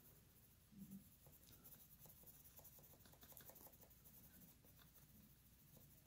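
Faint scratching of a Prismacolor colored pencil on coloring-book paper, a run of quick, short, light shading strokes that tails off near the end.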